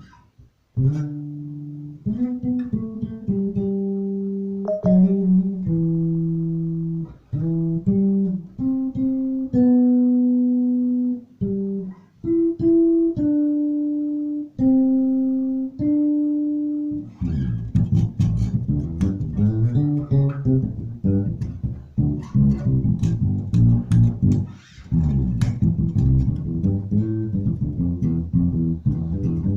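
Maruszczyk Elwood X5 five-string electric bass played solo: a slow line of separate, sustained single notes. A little past halfway it switches to a faster, busier groove with sharp percussive attacks on the strings.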